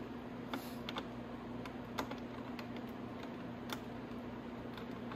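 Scattered light clicks and taps of hands working the plastic headlight housing and threading its mounting bolts in finger tight, over a steady low hum.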